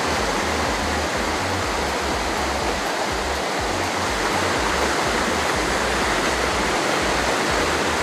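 River rapids: a swollen, muddy river running high after rain, rushing over rocks in a steady roar of white water with an uneven low rumble underneath.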